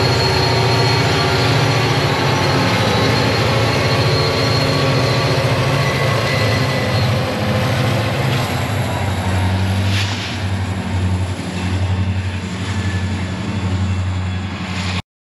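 BNSF freight train rolling past with a diesel locomotive's engine running, a steady low drone over wheel and car noise. It eases off in the second half and cuts off suddenly near the end.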